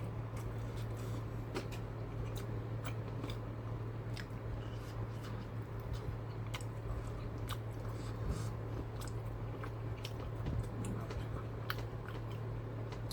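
Close-up chewing of a soft rice and bean burrito: a run of small, irregular wet mouth clicks over a steady low hum.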